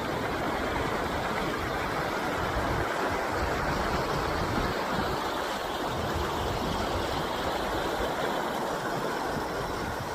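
Steady rushing of a flowing river, with an uneven low rumble underneath.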